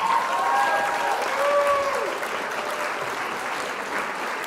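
Crowd applause with a few cheers in the first two seconds, fading slightly.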